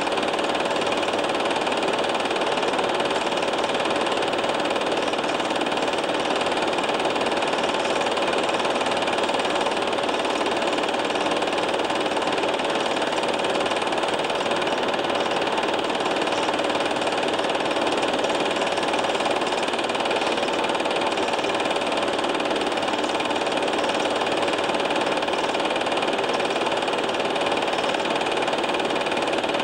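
Home-movie film projector running steadily: a constant mechanical whir with a few held hum tones.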